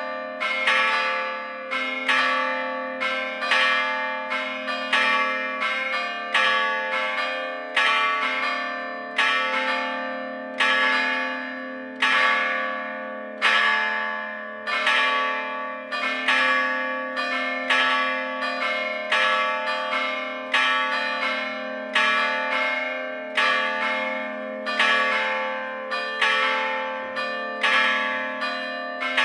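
Three church bells cast in Gescher, struck by hammers rather than swung, ringing together in an uneven pattern of about one stroke a second. Each stroke rings on and overlaps the next, leaving a steady hum underneath.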